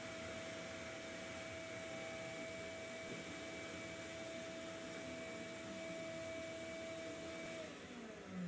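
CNC router carving a wooden cutting board with a V-bit: the router motor's steady high whine over the hiss of the dust-collection hose drawing air. Near the end the whine drops in pitch.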